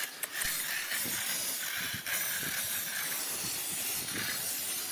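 Handheld water spray nozzle sending a steady hissing spray of water onto wet soil and stones.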